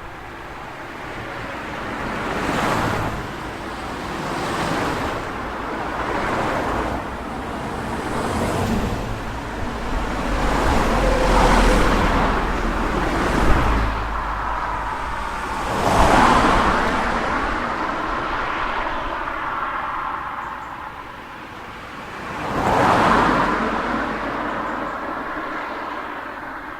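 Street traffic: cars passing one after another, each pass swelling and fading. The loudest passes come about two-thirds of the way in and again near the end.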